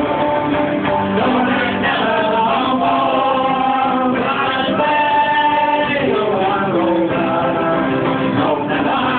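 Live band playing Irish music, with a sung melody carried over the instruments.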